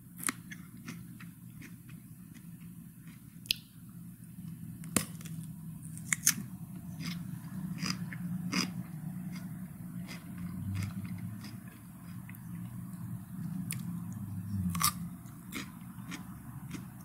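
Mouth chewing cucumber: irregular crisp crunches and wet clicks, a few louder bites among them, over a low hum that swells in the middle.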